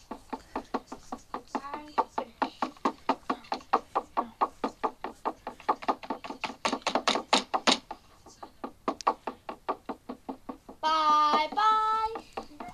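Steam locomotive working, its exhaust beating about five times a second, fading after a few seconds, then a whistle sounding briefly near the end, heard as a recording played back through a tablet's speaker.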